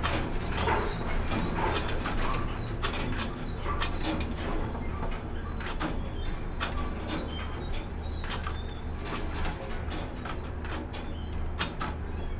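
Container crane heard from the operator's cab as a container is lowered into a ship's hold: a steady low hum that swells and eases, with frequent sharp clicks and rattles.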